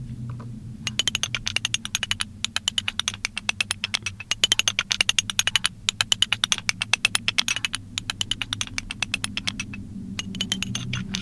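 Vintage manual typewriter being typed on fast, key strikes coming several a second in runs with short pauses between them, starting about a second in. A low steady hum sits underneath.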